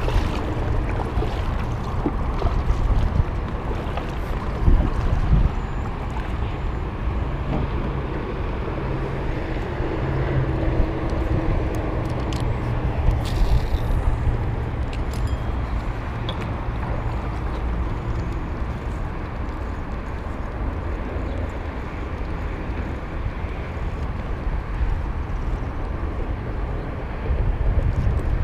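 Steady wind rumble on the microphone and water around a kayak, with a few light clicks and knocks as paddle and fishing rod and reel are handled.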